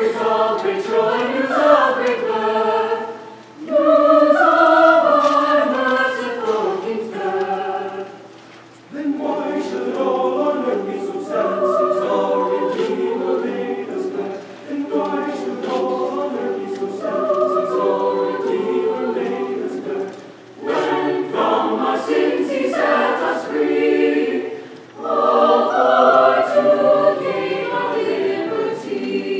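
Mixed choir of young men and women singing unaccompanied, phrase after phrase, with short breaks for breath between the phrases.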